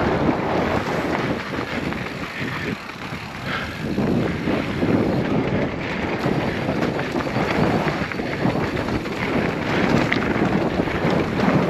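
Wind buffeting the microphone while a mountain bike rolls fast over a rough, rocky dirt trail, with tyre noise and small rattles from the bike.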